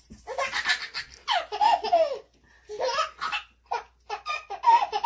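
A baby laughing hard in a quick run of separate bursts of giggles and belly laughs.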